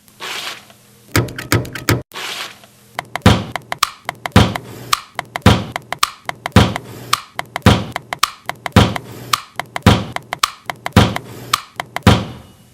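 Instrumental hip-hop beat built from percussive knocks and thuds. A few scattered hits come first, then from about three seconds in a steady rhythm runs, with a heavy hit about once a second and lighter knocks between.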